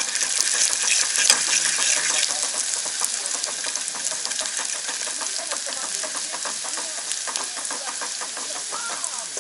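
Sliced shallots and garlic sizzling in hot oil in an aluminium pot on a portable gas stove, with a metal utensil scraping and clicking against the pot as they are stirred. The sizzle is loudest for the first two seconds, then settles to a steadier sizzle.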